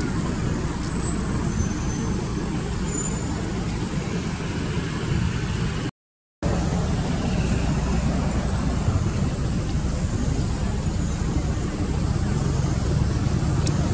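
Steady low rumble of outdoor background noise, like road traffic, broken by a sudden half-second dropout to silence about six seconds in.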